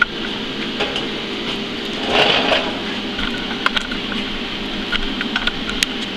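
Steady mechanical fan hum, with scattered light clicks and a brief rustle about two seconds in from a handheld camera being moved.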